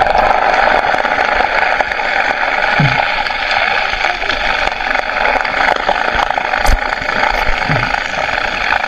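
Steady, muffled underwater noise picked up by a submerged action camera, with scattered light clicks and a couple of brief low glides.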